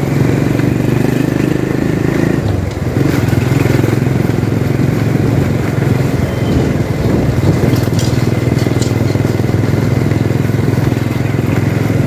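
Motorcycle engine running as the bike rides along a street at low speed. The engine note dips and changes briefly about two and a half seconds in, then carries on steadily.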